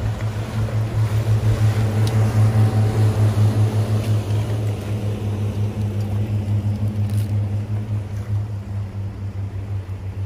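Motorboat engine passing close by: a low, steady drone with a fast throb, loudest a couple of seconds in and then slowly fading as the boat moves away.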